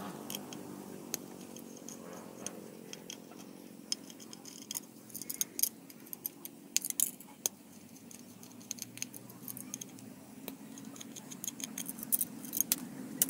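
Small screwdriver clicking and scraping on the screws and metal casing of a hard drive as its circuit board is unscrewed: irregular light ticks and clicks, thickest in the middle and near the end, over a steady low hum.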